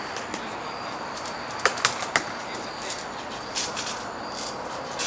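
Wrestlers moving on a backyard trampoline ring: three sharp clacks close together about two seconds in, then a few softer rustles.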